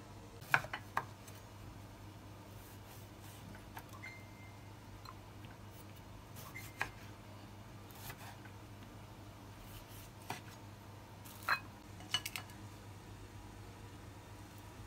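Scattered sharp kitchen clicks and knocks: a chef's knife cutting limes down onto a wooden cutting board, and utensils handled around a ceramic bowl. The loudest knock comes about half a second in, with a quick cluster of them near the end.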